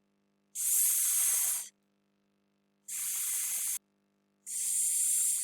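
A person making the 's' phonics sound, a long hissing 'sss', three times, each held for about a second.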